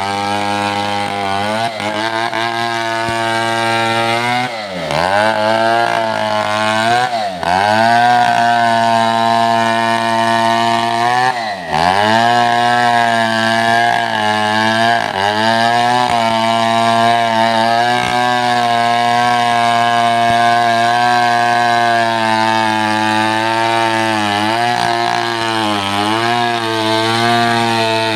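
Two-stroke chainsaw running loudly at high revs, its pitch dipping sharply and recovering three times, around five, seven and twelve seconds in, then holding steady.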